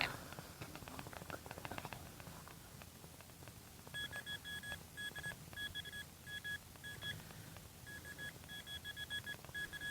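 A handheld metal-detecting pinpointer beeps in short fixed-pitch pulses, in bursts with gaps, as it is worked over a buried metal target: a shotgun shell. The beeping starts about four seconds in, after a couple of seconds of quick scraping and crunching clicks in the soil.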